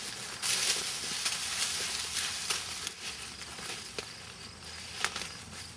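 Rustling of tall field plants being brushed through, with a few small snaps, loudest in the first couple of seconds and then fading. Faint crickets chirr underneath.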